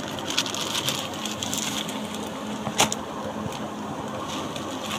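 Clear plastic saree packaging crinkling and rustling as a saree is pulled out of it and unfolded, with one sharp click a little after the middle. A steady low hum runs underneath.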